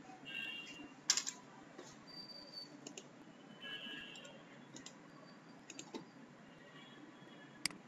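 A few scattered faint clicks from a computer mouse and keyboard, the sharpest about a second in and another near the end, over a low steady background hum.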